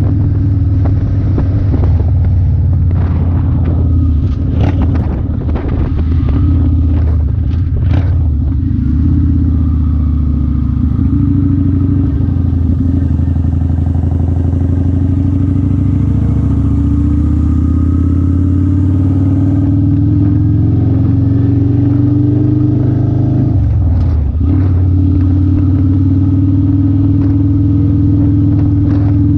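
Kawasaki Vulcan 900 Classic's V-twin engine running steadily while riding. The pitch climbs slowly through the middle and dips briefly, then picks back up, about five seconds before the end, with a few knocks and rattles in the first several seconds.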